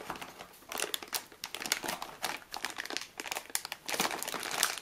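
Protective packaging crinkling and rustling in irregular bursts as a hard drive is slid out of it by hand.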